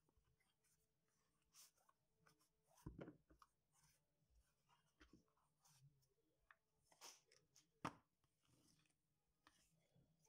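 Faint cardboard packaging handling: a motor controller's box rubbing and sliding against its cardboard sleeve, with scattered light rustles and a couple of louder knocks, about three seconds in and near eight seconds.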